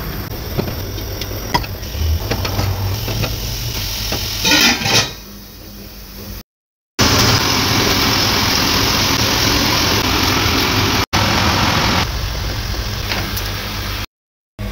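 Knife cutting through raw fatty lamb on a metal tray, with clicks and scrapes and a louder run of strokes about five seconds in. After a cut, fatty meat sizzles in a steel pot on a gas burner, rendering its fat, with a dense steady hiss.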